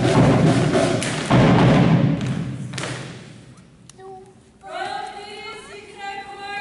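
Heavy thudding and rumble that dies away in the echo of a large hall. After a short lull, a group starts singing in long held notes.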